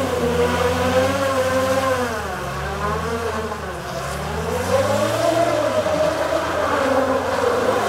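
Jeep Cherokee XJ's 2.5 four-cylinder turbodiesel engine revving hard as the wheels spin through slush and mud while the Jeep slides around in circles. The engine note rises and falls several times.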